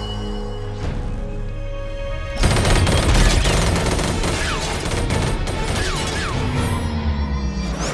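Film music score alone at first; about two and a half seconds in, sustained automatic rifle fire breaks in suddenly, with bullets ricocheting off metal bracers, and it continues over the music.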